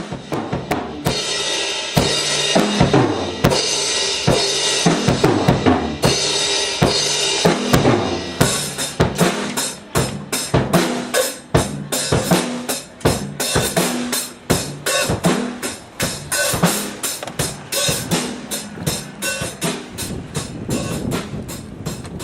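Drum kit playing with a pitched instrument underneath: cymbals ring continuously for the first eight seconds or so, then the kit switches to a busy run of sharp snare and bass-drum strokes.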